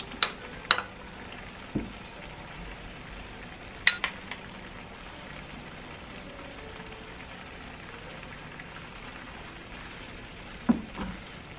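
Shiitake mushrooms simmering in broth in a frying pan, a steady bubbling sizzle. A few sharp taps of utensils on the pan as sliced green chillies and ground perilla seeds go in, and a wooden spatula knocking against the pan as it stirs near the end.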